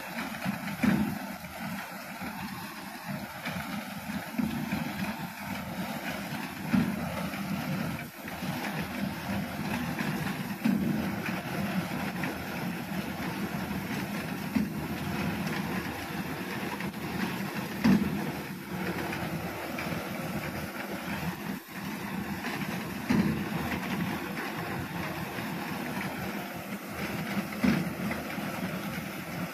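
Reaper binder running steadily as it works through standing wheat, with a brief louder surge every few seconds.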